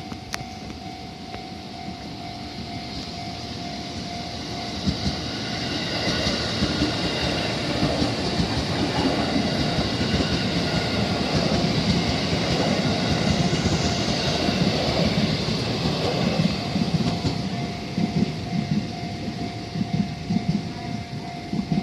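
JR 313 series electric train passing over a level crossing, building to its loudest about halfway through and easing off, with sharp wheel knocks over the rails. The crossing's warning bell sounds as a steady tone, heard clearly at the start and again near the end.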